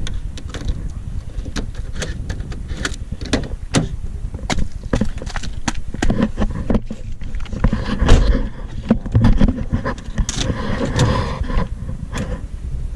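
A run of irregular clicks and knocks from hands working on a car's fittings and parts.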